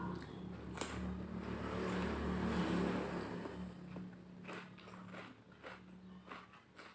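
A low engine hum swells to its loudest about two and a half seconds in and then fades, like a motor vehicle passing. Close-miked chewing clicks and crunches come in the second half, under the hum as it fades.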